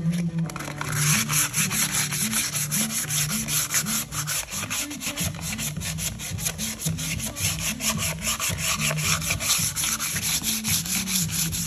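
Sandpaper rubbed by hand over a metal trailer rim in quick, rhythmic back-and-forth strokes, scuffing the old finish dull so the paint will stick. The sanding starts about half a second in.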